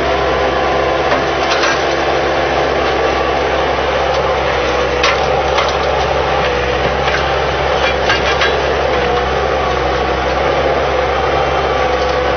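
Loader engine running steadily, with a few sharp clanks and knocks of the attachment or machine.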